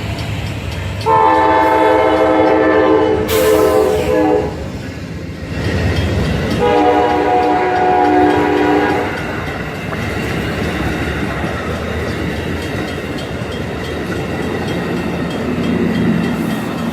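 Passenger train's horn sounding two long blasts for a grade crossing, then the train rolling past with a steady rumble of wheels on the rails.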